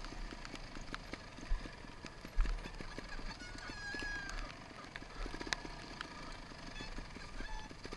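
Off-road motorcycle ridden along a rutted muddy grass trail: irregular knocks and clatter over a low rumble, with a brief high tone about four seconds in.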